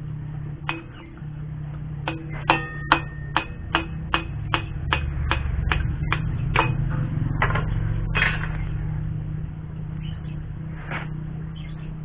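Hammer striking a steel drift punch against the hub of a motorcycle front wheel to drive out the old wheel bearing, which has gone rusty: sharp metallic blows, some with a ringing tone. They come about two to three a second for several seconds, then a few spaced strikes near the end.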